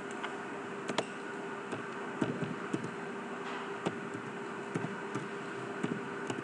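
Computer mouse clicks and keyboard keystrokes, a dozen or so short irregular taps, over a steady background hum.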